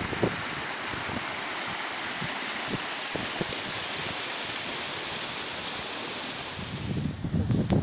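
Shallow mountain stream rushing steadily through small rapids over granite bedrock. Near the end the rush fades and a louder low rumble sets in.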